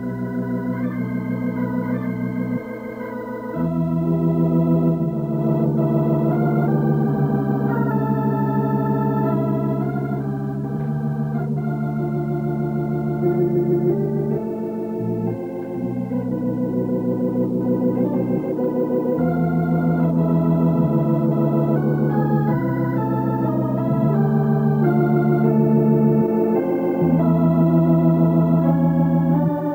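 Background music: held chords under a slow melody, with deep bass notes that drop out now and then.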